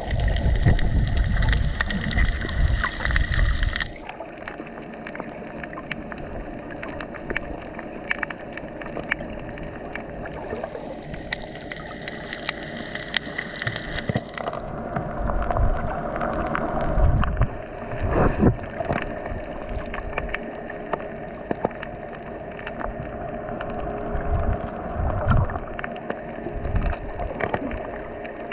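Underwater sound picked up by a camera held below the surface over a coral reef: a muffled wash of water with scattered crackling clicks throughout. A louder low rushing fills the first four seconds, and a brief hiss returns for a few seconds near the middle.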